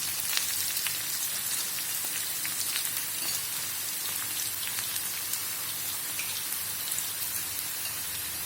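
Chopped chilies, shallots, garlic, leek and curry leaves sizzling steadily in hot oil, with a fine crackle throughout, as the aromatics are sautéed until fragrant.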